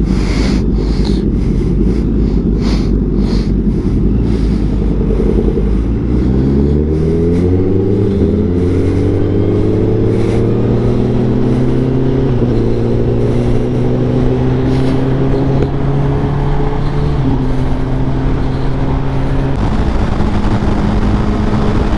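Honda CBR1000RR SP's inline-four engine accelerating through the gears, its pitch climbing and then dropping back at each of three upshifts, over heavy wind rush that dominates the first few seconds.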